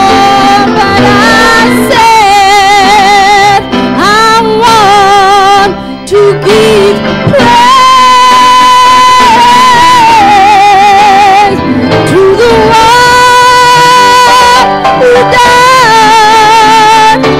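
A woman's voice singing a church song into a microphone, with wide vibrato on long held notes. Steady lower backing tones sound beneath the melody.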